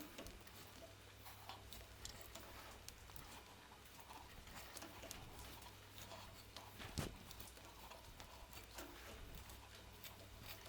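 Near silence: a faint low hum with scattered light clicks, and one sharper click about seven seconds in.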